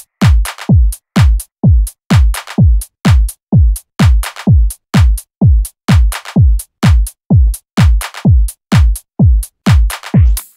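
Tech house track: a steady four-on-the-floor drum machine kick at about two beats a second, each kick dropping in pitch, with short crisp percussion hits over it. A hissing noise swell comes in near the end.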